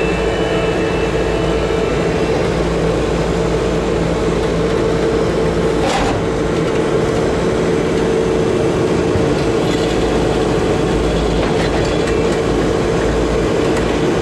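Bobcat T870 compact track loader's diesel engine running steadily under load as it climbs the ramps onto an equipment trailer, with its rubber tracks and undercarriage clattering. One sharp clank about six seconds in.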